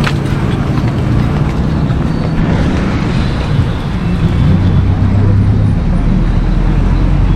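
Road traffic: vehicle engines running and passing close by as a steady low rumble, with a heavier engine drone building over the last couple of seconds.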